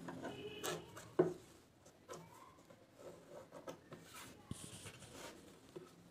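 Cloth rustling and rubbing as a fabric border is folded and creased by hand, with a sharp click about a second in and a brief swish a little past the middle.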